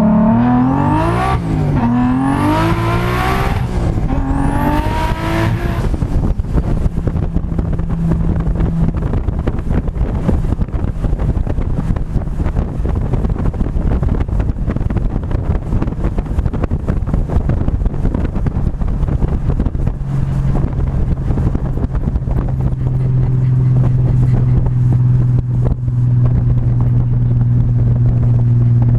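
Turbocharged BMW M3 engine accelerating hard, its pitch climbing and dropping three times over the first several seconds as it shifts up, with a high turbo whistle rising on each pull. It then runs on under a steady rush of road and wind noise, and a steady engine drone comes back in for the last third.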